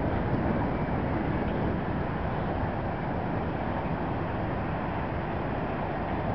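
Steady outdoor ambient noise: an even, continuous rush with no distinct events.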